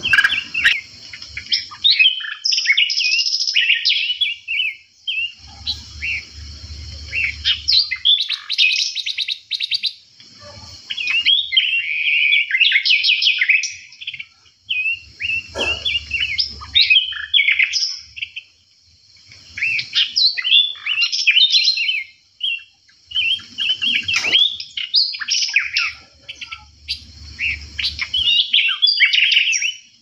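Several songbirds chirping and singing over one another: busy runs of short chirps, trills and whistled notes with only brief pauses.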